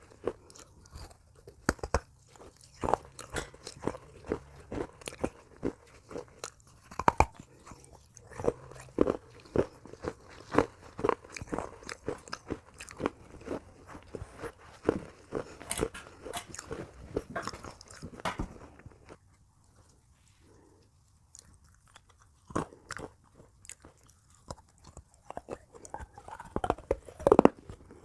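Pieces of baked clay pot being bitten and chewed: a dense run of sharp, dry crunches that stops for a few seconds about two-thirds of the way through, then picks up again with a few louder crunches near the end.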